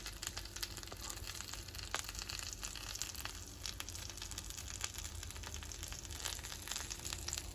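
Kingfish steaks in garlic butter sauce sizzling faintly on a hot cast-iron sizzling plate, a steady crackle of tiny pops.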